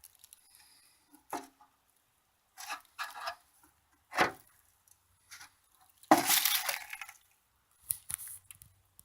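Scattered light clinks and knocks with a short scraping rustle about six seconds in.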